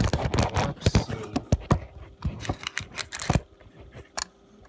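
Handling noise close to the phone's microphone: a quick run of clicks, knocks and rustling of plastic as the phone and candy packaging are handled. It thins out to a few faint taps after about three and a half seconds.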